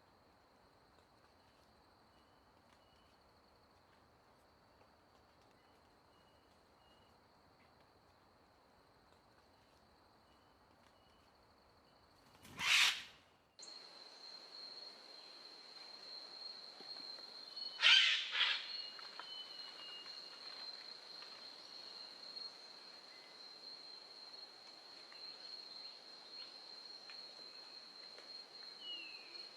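Natural outdoor ambience: a steady, high insect drone with faint short bird chirps. Two loud, sudden sounds break in, one about 13 seconds in and a cluster of several about 18 seconds in; after the first, the drone and background grow louder.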